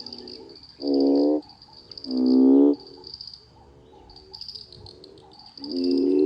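A chorus of frogs giving male breeding calls after summer rain. A loud nearby frog lets out a droning, finely pulsed croak of about half a second three times, around one, two and six seconds in. Behind it are fainter croaks and a continuous high trilling chorus.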